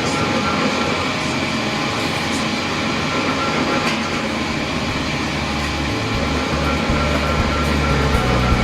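Industrial machinery running steadily, a dense mechanical noise with a few constant whining tones; a steady low hum comes in strongly about two-thirds of the way through.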